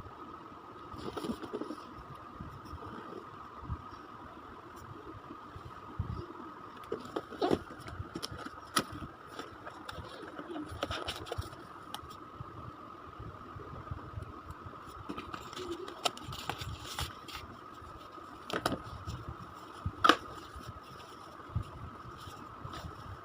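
Scattered clicks, knocks and light scraping from items and packaging being handled, over a steady thin high hum.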